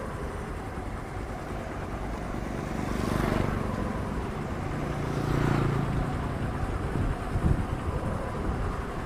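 Road traffic: vehicles passing close by over a constant low rumble, swelling twice, about three and five seconds in, the second with a steady engine drone. A few low thumps come near the end.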